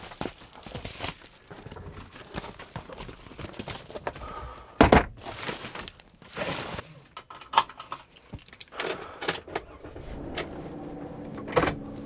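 Keys jangling with clicks and knocks as a person moves about a camper van's cab and settles into the driver's seat, with a sharp thunk about five seconds in. Near the end the van's engine starts and runs at a steady idle.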